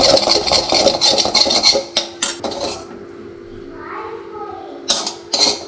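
A metal spoon scraping and clinking against a metal kadai as scrambled egg is stirred and scooped out, then clinking on a steel bowl of rice. There is rapid scraping for the first two seconds, a quieter gap, and a few sharp clinks about five seconds in.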